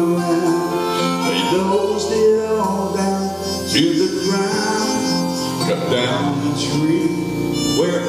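Man singing a gospel song over instrumental accompaniment, holding long notes between shorter phrases.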